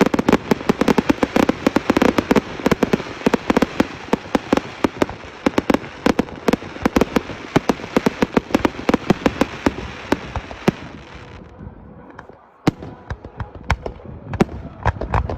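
Fireworks going off in a rapid, dense barrage of bangs and pops that thins out about eleven seconds in, falls to a brief lull, then picks up again with sharper single bangs.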